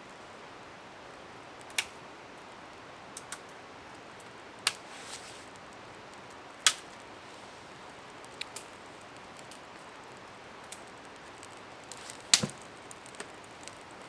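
Scattered sharp snaps and crackles, about a dozen, as a small fire of dry bracken and twig kindling catches and sticks are laid on it. The loudest snaps fall about halfway through and near the end, over a faint steady hiss.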